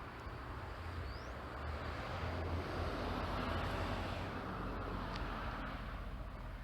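A vehicle passing by: a broad noise with a low rumble underneath that swells to a peak about halfway through, then fades away.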